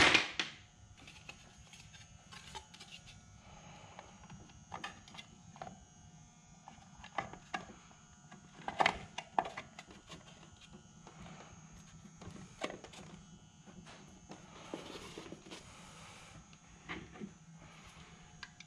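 Scattered light clicks and taps of a plastic trolling-motor head cover being handled and pressed into place, with small parts knocking on the bench now and then.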